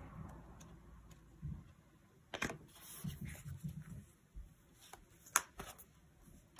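Paper stickers and planner pages being handled: soft rustles and light taps, with a sharp click a little past five seconds in.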